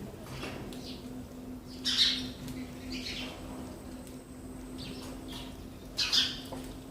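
Sparrows chirping: short, separate chirps at irregular intervals, with two louder ones about two seconds in and near the end.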